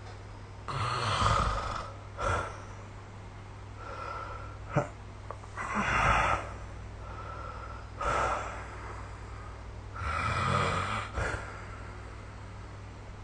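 A sleeping person snoring: three long snores about four to five seconds apart, each followed by a shorter, softer one, with a brief sharp click about five seconds in, over a steady low hum.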